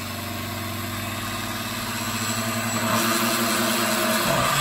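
Oster countertop blender running, churning a thick, creamy mix of cream cheese, sweetened condensed milk, sour cream and pineapple juice. The steady motor hum changes pitch about three seconds in and again near the end.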